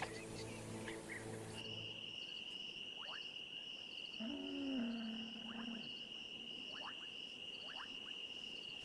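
Dusk wetland ambience: a steady high insect trill with a faster pulsing chorus above it and a few short chirps. About halfway through comes one low, drawn-out animal call. Music is heard for the first second and a half, then cuts out.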